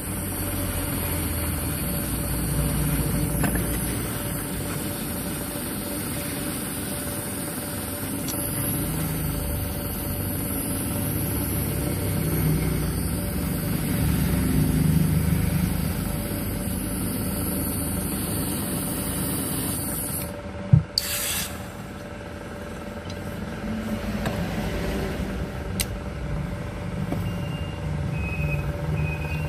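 Electric hot-air soldering gun blowing steadily with a hum and high hiss as it heats lead solder on a Zippo lighter's hinge. The hiss cuts off about twenty seconds in, followed by a sharp knock and quieter steady background noise with a few small ticks.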